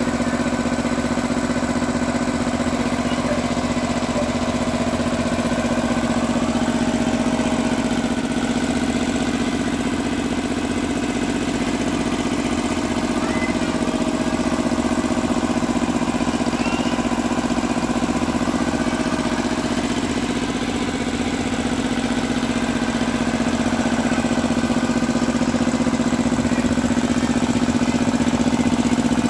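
A 100-litre piston air compressor with a 3 hp, 220 V motor runs steadily as a continuous low drone.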